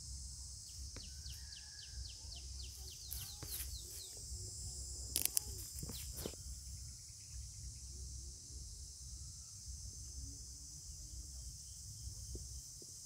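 Outdoor insect chorus: a steady high hiss of crickets over a low rumble. A quick run of chirps plays about one to four seconds in, and a few sharp crackles come about five to six seconds in.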